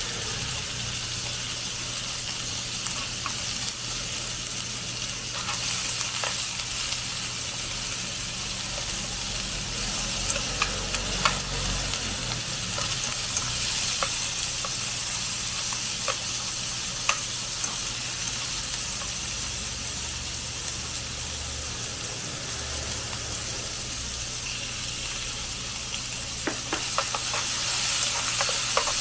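Cubes of filet steak and sliced onion sizzling in a nonstick frying pan on a gas cassette stove, with a few light ticks of chopsticks against the pan as the meat is turned. The sizzle grows a little louder near the end.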